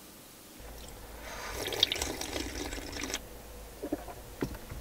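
Liquid poured from a small pot into a cup, a splashing pour lasting about two seconds, followed by a couple of faint clicks near the end.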